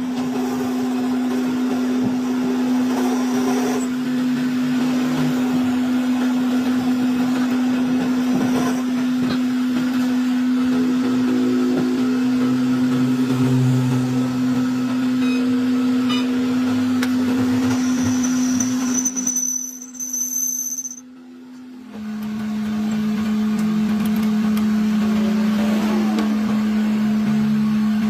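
Steady hum of a workshop machine's electric motor running continuously. It cuts out abruptly for about two seconds near the twenty-second mark, then resumes at a slightly lower pitch.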